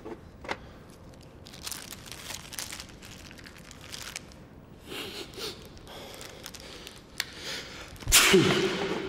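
Soft rustling and breathy swishes, then about eight seconds in a loud burst with a falling, voice-like sound, a groan or gasp.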